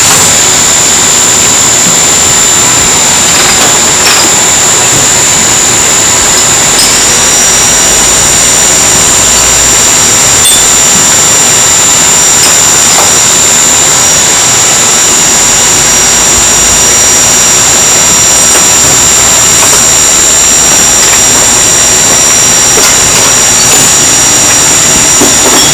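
Mazak SQT-15MSY CNC lathe running: a loud, steady machine noise with a constant high whine. A second, slightly lower whine joins about seven seconds in and stops near the end.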